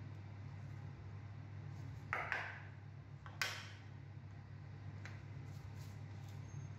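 Plastic felt-tip marker parts being pulled apart and set down on a wooden table: two short scrapes about two seconds in, then a sharp click, with a few fainter clicks later, over a steady low hum.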